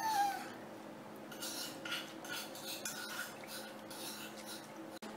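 Hands washing leafy greens in a plastic bowl of water: soft, scattered splashing and handling noises over a faint steady hum.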